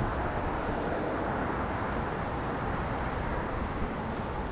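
A fast mountain river rushing steadily over rocks, running high after a night's rise in the water.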